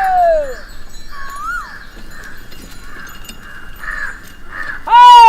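Village daytime ambience: small birds chirping throughout, a long animal call falling in pitch and fading out about half a second in, and a loud, short arching call near the end.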